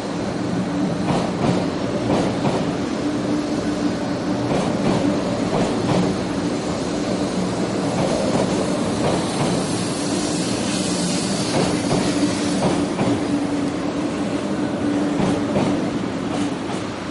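500 Series Shinkansen train rolling past the platform: a steady electric hum with scattered clacks of the wheels on the rails, fading a little as the last car goes by.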